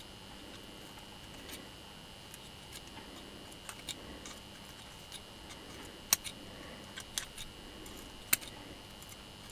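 Light metallic clicks and taps of a small steel tool against an angle grinder's armature shaft and bevel gear, scattered and uneven, with two sharper clicks in the second half.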